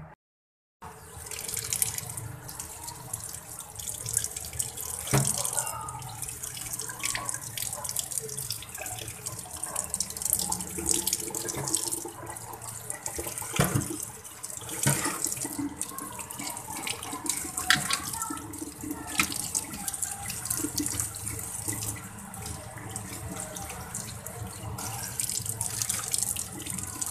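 Tap water running onto raw mango pieces in a stainless steel colander while a hand tosses them, a steady splashing with scattered knocks of the pieces against the metal. It starts after a brief silence.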